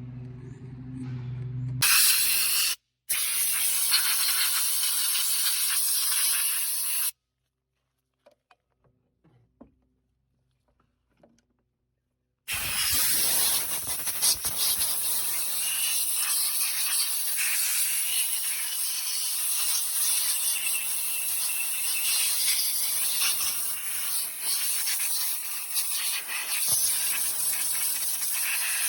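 Pressurised spray hissing steadily at the grimy chainsaw, cleaning it: one burst of about five seconds starting about two seconds in, then after a silent gap a longer continuous spray through the rest.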